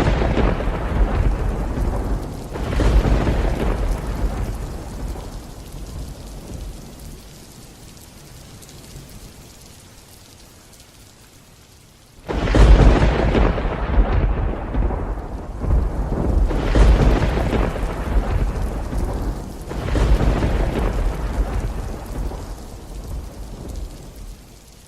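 Thunderstorm: thunder rolling over rain. A rumble dies away over the first several seconds, then a sudden loud clap comes about twelve seconds in, followed by further rolling peals that fade near the end.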